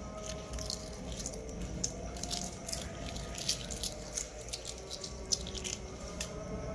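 Shells of hard-boiled eggs cracking and crinkling as they are peeled by hand: many small, irregular crackles, over a faint steady hum.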